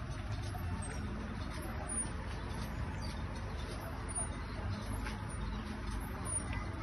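Steady outdoor background noise with a low rumble, and a few faint, short high chirps or squeaks scattered through it.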